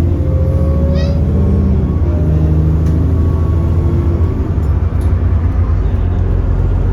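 An Alexander Dennis Enviro400 double-decker bus's diesel engine running under way, heard from on board as a loud, low drone. The engine note climbs gradually, then breaks off and settles about four seconds in.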